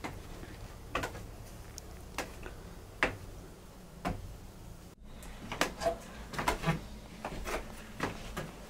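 Footsteps and light knocks on wooden boards: a few scattered clunks at first, then more frequent ones in the second half.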